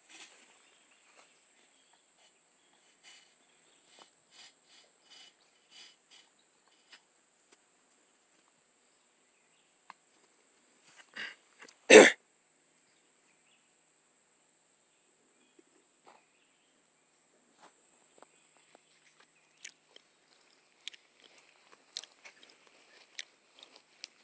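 A cow coughs once, short and loud, about halfway through, with a couple of fainter coughs just before it. Faint scattered clicks and rustles and a steady high hiss run underneath.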